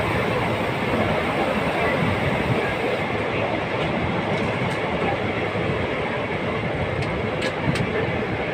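Passenger train running, heard from inside the coach: a steady noise of wheels on the rails, with a few faint clicks near the end.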